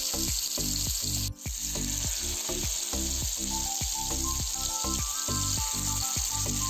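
Masala-coated white kilangan (silver whiting) fish pieces sizzling steadily as they shallow-fry in hot oil in a pan. The sizzle breaks off for a moment just after a second in.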